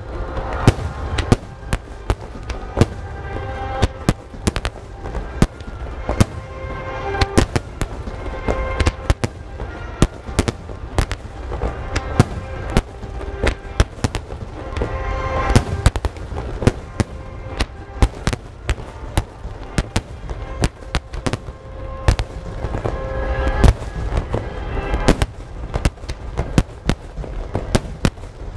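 A rapid barrage of aerial firework shells bursting: many sharp bangs a second, irregular, over a continuous low rumble. Music plays underneath.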